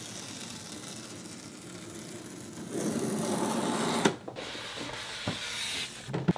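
Adhesive pull-tab tape peeled in one long steady strip along the seam of a cardboard iMac box, then louder cardboard rubbing and scraping as the box is opened, with a sharp knock about four seconds in.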